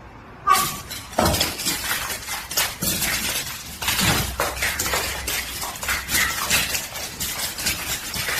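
Continuous clattering and clinking of hard objects, many sharp knocks in quick succession.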